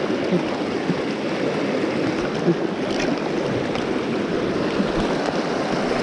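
Mountain stream rushing steadily over rocks, a continuous wash of fast-flowing water.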